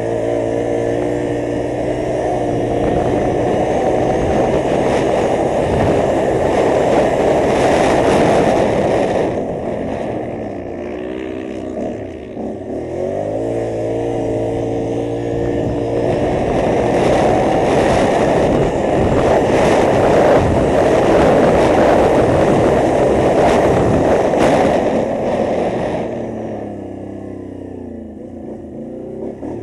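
Can-Am ATV engine under hard throttle over a loud rushing noise. Its pitch climbs as it accelerates, dips about ten seconds in as the throttle comes off, then climbs again before easing off near the end.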